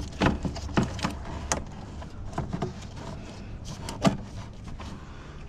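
Plastic engine-bay parts being handled by hand: scattered knocks and clicks as the air intake duct is shifted and the cooling fan assembly is worked loose, over a steady low hum.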